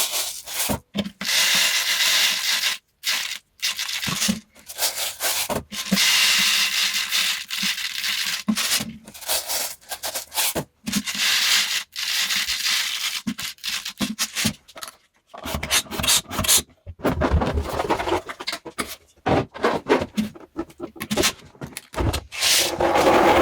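Hands working a latex balloon, making irregular rubbing and scraping strokes with short pauses between them.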